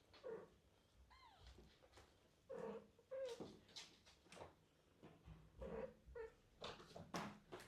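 Cat calling softly: a string of short mews or chirps, about six of them, with a higher call that falls in pitch about a second in, over faint scuffling of play.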